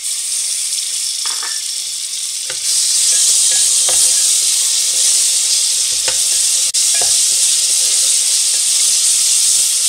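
Ginger-garlic paste frying in hot oil with chopped onions and cumin, a steady high sizzle that gets louder about three seconds in as the paste is stirred in. A wooden spatula scrapes the metal pot a few times.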